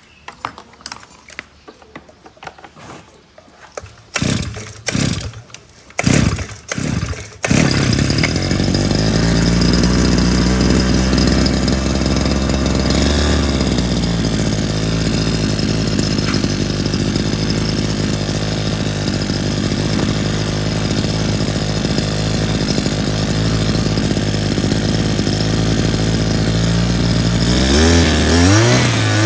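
The Taiwan-made two-stroke engine of a Kioritz SHP-800T power sprayer is pull-started with several quick recoil pulls. It catches about seven seconds in and runs steadily on its newly fitted replacement carburetor, then revs up near the end.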